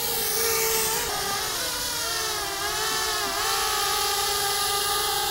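Swellpro SPRY+ waterproof quadcopter drone flying overhead, its motors and tri-blade propellers giving a steady buzzing whine that dips in pitch twice, about two seconds in and again just after three.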